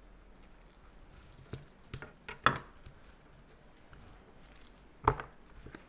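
A few sharp knocks of a knife and a slab of raw spare ribs on a wooden cutting board, the loudest about halfway through and another near the end.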